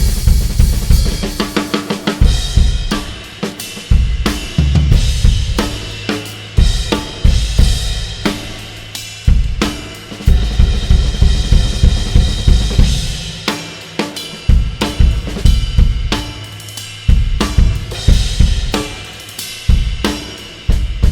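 A drum kit played in a continuous groove, with Pergamon Turkish cymbals ringing and washing over kick-drum and snare hits.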